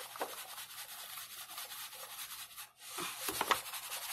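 Flour pouring from a paper bag into a bowl: a soft, steady hiss with the bag's paper rustling, breaking off for a moment about two-thirds of the way through.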